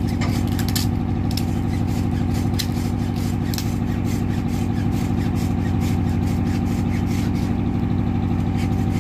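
A boat's diesel engine running steadily, a constant low drone. Over the first few seconds, quick crackles of adhesive tape being pulled off its roll.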